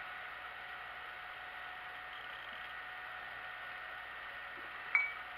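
Steady workshop hum with a faint constant whine, then a single sharp metallic clink with a short ring near the end, a steel hand tool striking the milling machine's vise.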